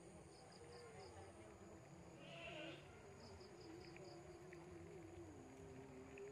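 Faint evening ambience: an insect chirping in short series of five or six quick high pulses, twice, over a faint wavering hum.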